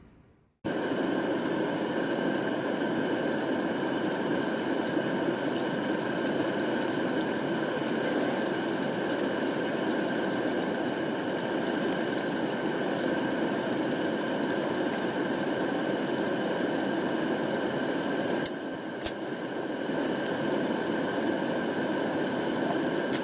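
Hand pies deep-frying in hot oil: steady sizzling and bubbling that starts abruptly about half a second in. Two sharp clicks come about three-quarters of the way through.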